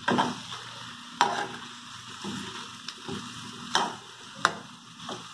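Stirring in a metal pan of cooking pork and vegetable mixture on the stove as corn flour is worked in for cuscuz, with a light sizzle. Four sharp knocks against the pan break in through it.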